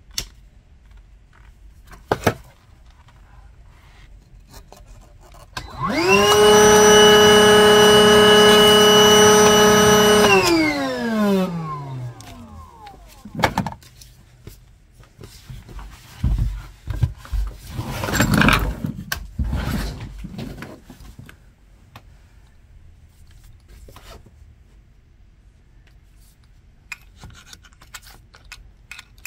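A handheld power tool's motor runs at a steady whine for about four seconds, then winds down with a falling pitch. Scattered scrapes and knocks follow, the strongest a few seconds after the motor stops.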